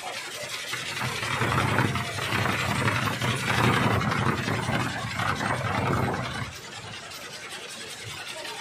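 Kolecer, a large wooden wind propeller on a tall pole, spinning in the wind with a steady low drone. It is loud for several seconds, then drops off about six and a half seconds in.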